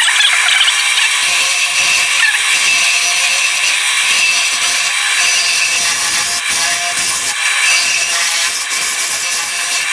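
Wood lathe running while a turning tool cuts the spinning oak-and-walnut mallet handle: a steady scraping hiss of the tool on the wood over the faint whine of the lathe.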